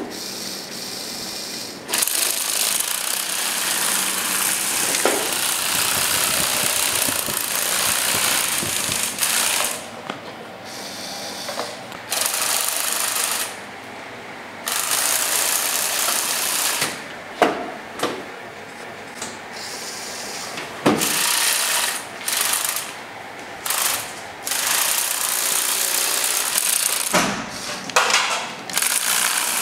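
Lego Power Functions M motors whirring through plastic gears while a Lego Technic tracked vehicle drives, its plastic tread links clattering on a tile floor. Steady for the first several seconds, then stopping and starting again and again in short runs.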